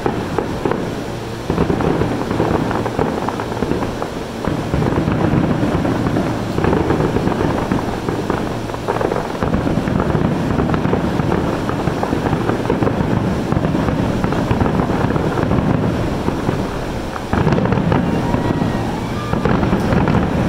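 Aerial fireworks shells bursting in quick succession, their bangs running together into a continuous rumble, easing briefly near the end before picking up again.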